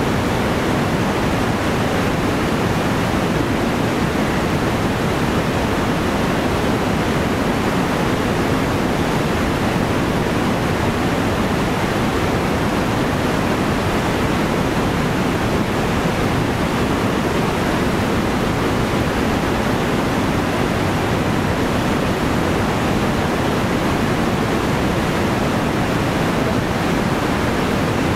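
Fast creek rapids: whitewater rushing over rocks in a steady, unbroken hiss.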